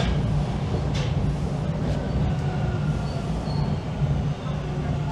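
Inside a moving Toronto subway car (TTC T1 train) pulling into a station: a steady rumble of wheels and running gear. Faint thin whine tones come in during the second half.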